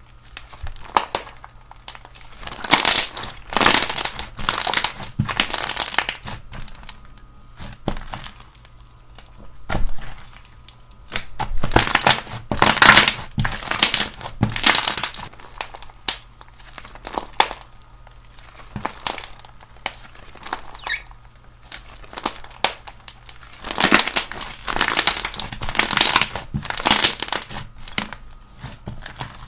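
Slime being squeezed and pressed by hand, giving crackling, crinkling sounds in stretches of a few seconds with quieter pauses between them.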